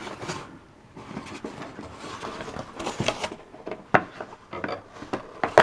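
Packaging being handled while parts are taken out of a box: scattered sharp clicks and taps with light rustling between them, the sharpest about four seconds in and again near the end.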